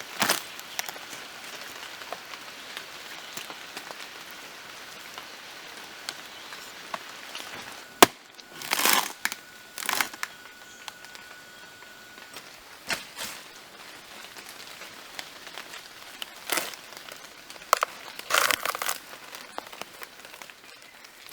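Rotten wood of a tree trunk being broken open: scattered crackles and crunches, with one sharp knock about eight seconds in and a few louder crunches after it.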